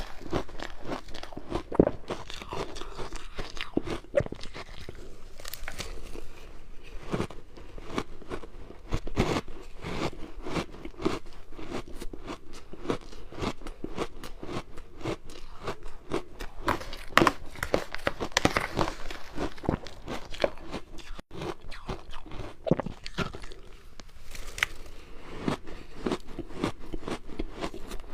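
Ice being bitten and chewed, a continuous run of sharp crunches, several every second.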